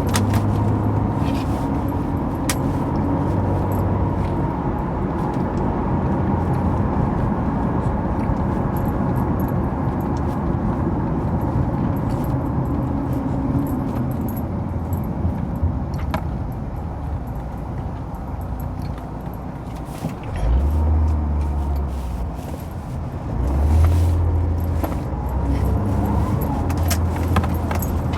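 Road and engine noise inside a moving car's cabin: a steady rumble with a low engine hum that shifts in pitch and level about twenty seconds in, and occasional light clicks and jingles.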